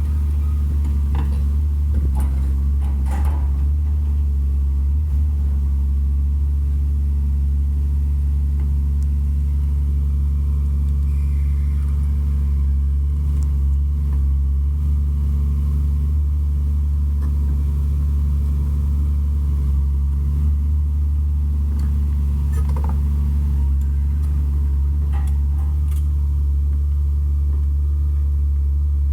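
Excavator's diesel engine running steadily under load as it pulls on a tow chain, a deep, even drone with a few faint clinks about a second and three seconds in and again near the end.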